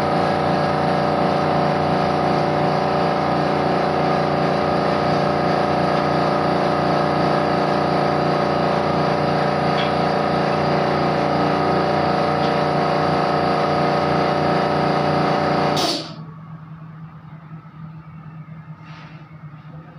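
Small air compressor running steadily for spray varnishing, then shutting off suddenly with a short hiss of air about three-quarters of the way through; a fainter low hum remains afterwards.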